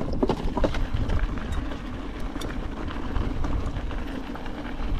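E-bike rolling over a rough mountain trail: a steady low rumble with rattling clicks and knocks, thickest in the first second.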